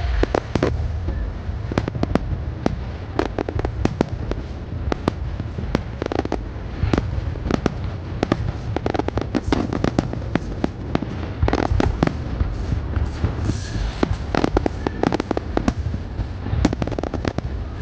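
Aerial fireworks shells bursting in a dense barrage: dozens of sharp bangs, often several a second, over a steady low rumble.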